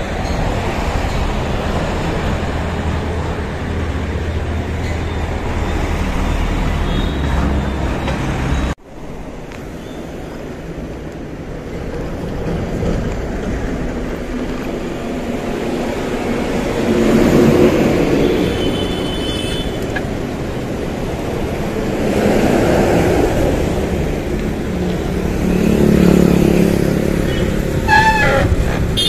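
Town road traffic going by, with cars, buses and motorbikes passing in waves. A low rumble sits under it until a cut about nine seconds in.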